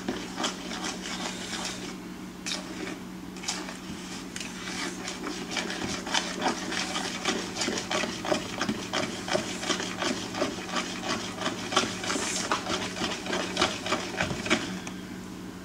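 Boxed yellow cake batter being stirred by hand in a bowl: a quick, rhythmic clicking and scraping of the utensil against the bowl, a few strokes a second. It stops near the end.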